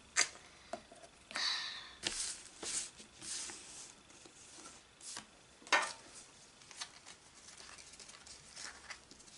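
Pokémon trading cards being gathered up off a playmat and handled: a few soft swishing slides in the first few seconds and scattered sharp taps and clicks.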